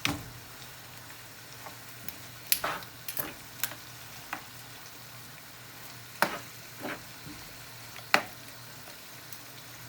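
Rice, peppers and seafood frying in oil in a pan with a steady sizzle, stirred with a utensil that knocks sharply against the pan every second or so, loudest about eight seconds in.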